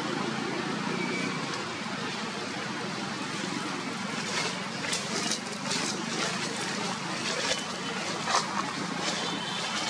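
Dry leaves crackling and rustling in short, irregular crackles from about four seconds in, as a newborn monkey crawls over them, over a steady low background rumble.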